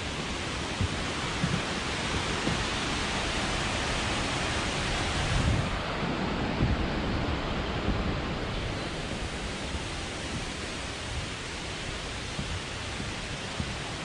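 Steady rushing noise of falling water from a tall waterfall nearby, with an uneven low rumble underneath.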